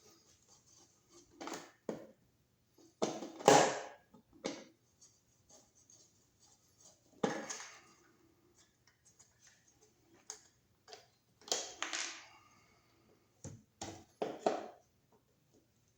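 Short, irregular scrapes and knocks of hand tools working at a wall outlet, about seven of them, the loudest about three and a half seconds in.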